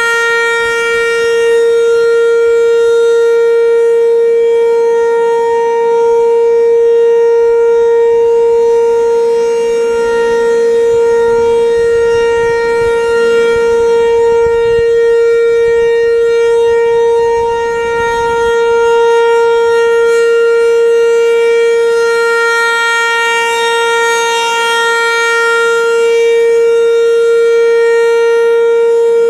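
Federal Signal 508 outdoor warning siren sounding a steady tone, its loudness swelling and dipping gently as it sounds. It is a test of the siren for a statewide tornado drill.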